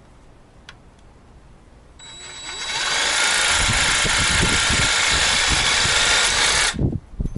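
DeWalt 20V MAX cordless jig saw starting up about two seconds in and running at full speed, its metal-cutting blade sawing into wood with an uneven chatter. It stops abruptly near the end, as the blade works loose from the tool-free clamp.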